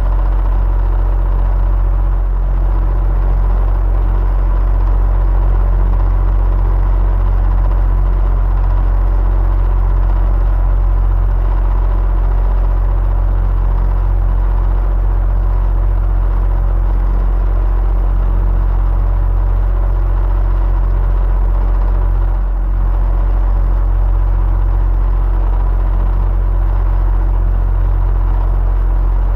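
Electric fan running steadily, a low rumbling whoosh of air with a faint motor hum.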